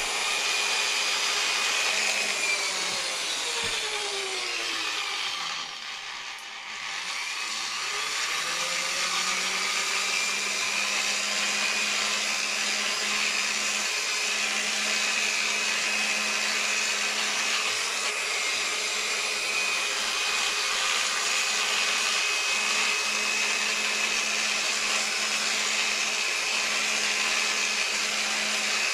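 Electric rotary polisher with a small pad, running steadily while buffing a lacquer finish. A few seconds in its whine slows and drops in pitch almost to a stop, then it speeds back up and holds a steady whine.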